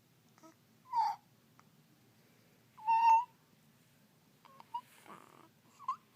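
Snoring with high, squeaky whistles on the breaths: one about a second in, a louder one about three seconds in, then fainter breathy snuffles near the end.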